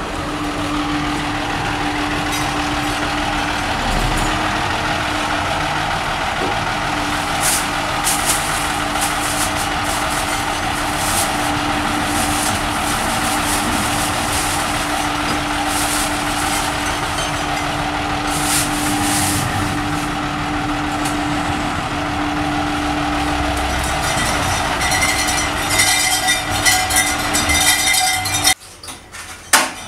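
Loud, steady vehicle noise with a constant hum, cutting off abruptly near the end.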